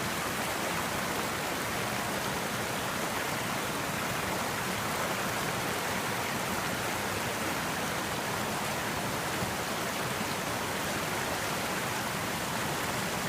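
Creek water rushing steadily, an even, unbroken rush.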